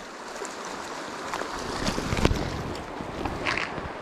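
Shallow creek water running over a riffle, with wind buffeting the microphone and a few knocks and thumps around the middle.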